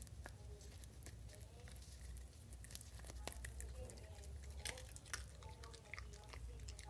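A dog chewing and biting roasted corn kernels off the cob: a run of faint, irregular crunching clicks.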